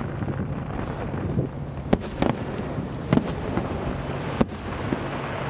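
Fireworks bursting: about four sharp bangs over a steady low rumble.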